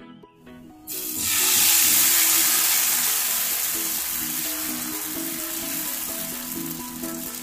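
Pink rice-flour batter with beetroot poured into a hot oiled frying pan, sizzling as it hits. The sizzle starts suddenly about a second in, is loudest just after, and eases off slowly as the batter sets into a lacy sheet.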